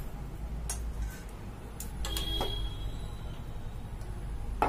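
A non-stick frying pan being shifted and tilted on a glass cooktop to spread heating oil, giving a few light clicks and knocks over a steady low hum. The sharpest knock comes near the end.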